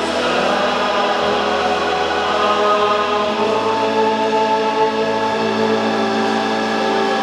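Choir singing a slow hymn in long, held chords, with the bass note changing about halfway through.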